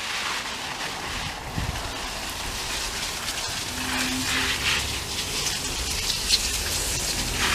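Garden hose spray nozzle spraying water onto concrete paving and shrubs: a steady hiss of spray with a few brief louder spurts.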